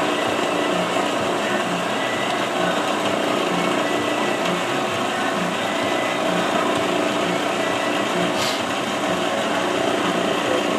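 Metal-cutting bandsaw running steadily while cutting through stacked aluminum square bar stock, with a faint pulse about once a second and a brief tick near the end.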